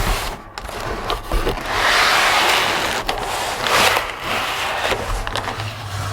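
Cardboard packaging being handled: rubbing and scraping as the box and its contents slide against each other, with a few sharp clicks and knocks.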